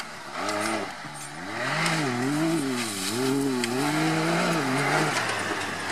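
Off-road 4x4's engine revving up and down as the driver works the throttle through the course, the pitch rising and falling about once a second.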